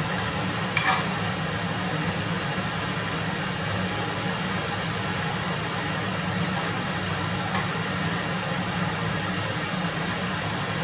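Scallops sizzling steadily in hot oil in a frying pan, over a steady low hum. Chopsticks turning them make a brief tap about a second in and a fainter one later.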